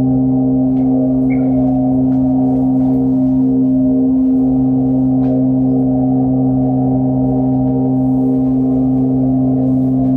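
Ambient drone music: a sustained, unchanging chord of steady low tones, the higher tones pulsing slowly, with faint scattered clicks over it.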